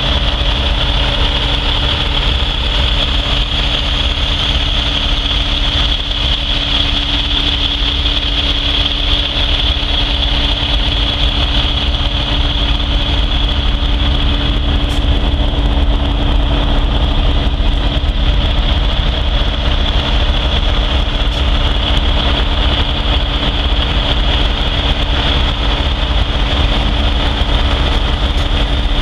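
Heavy diesel engine idling steadily close by: a constant low rumble with a steady high whine over it.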